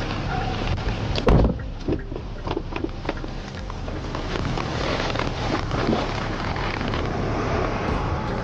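Steady outdoor rumble of road traffic, with one loud thump a little over a second in and a few lighter knocks after it, likely from handling the car during a search.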